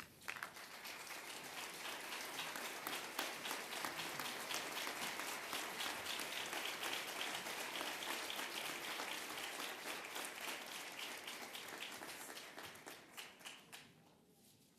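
Audience applauding, building up within the first second or two, holding steady, then dying away near the end into a few scattered claps.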